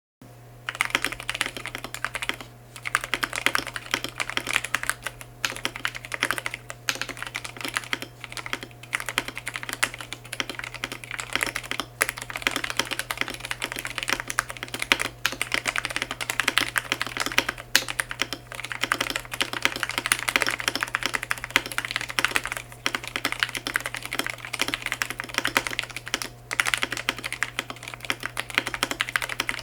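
Fast continuous typing on a Portico mechanical keyboard fitted with Gateron Milky Yellow top linear switches on UHMWPE stems, an FR4 plate and XDA keycaps, in a clear case without its silicone dampener. The keystrokes run in quick, dense clacks with a few brief pauses, over a steady low hum.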